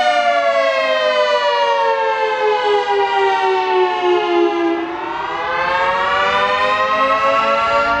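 Federal Signal 3T22 outdoor warning siren sounding the wailing attack signal. Its pitch slides down for about five seconds, then turns and climbs again. It is briefly a little quieter as the rise begins.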